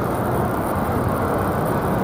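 Steady low city rumble, a continuous even noise with no distinct events.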